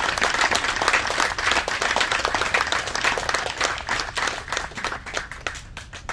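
Audience applauding: many hands clapping, thinning to a few scattered claps and dying away near the end.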